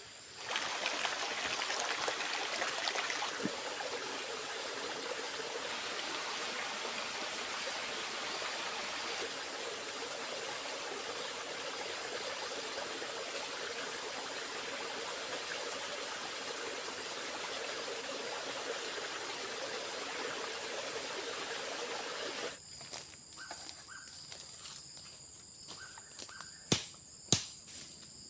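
A steady rush of water, like heavy rain or a stream, over a high steady insect drone. The rush stops abruptly about two-thirds of the way through, leaving the insects, and a few sharp knocks ring out near the end.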